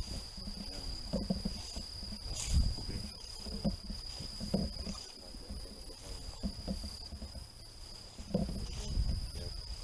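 A steady high insect trill, crickets calling in the night woods, runs unbroken. Under it are irregular soft thumps and rustles of footsteps through grass and brush on a trail.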